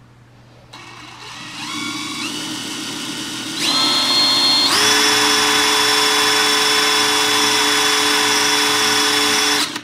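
Cordless drill motor whining, stepping up in speed several times over the first few seconds, then running steady at high speed for about five seconds before stopping suddenly near the end. The drill is working at the old, stuck fuel tank vent of a chainsaw to get it out.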